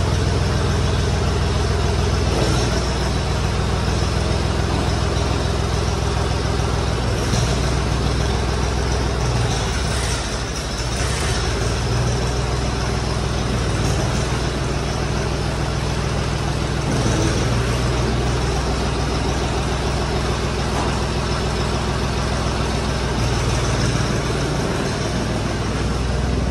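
Zetor 3011 tractor's diesel engine running steadily, its low note shifting a few times.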